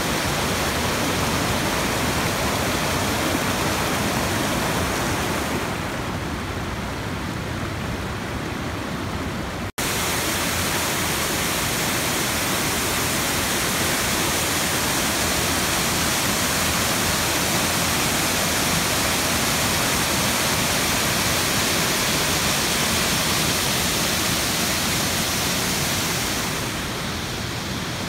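Waterfall and rapids pouring over rock: a steady, loud rush of water. The sound cuts out for an instant about ten seconds in and softens near the end.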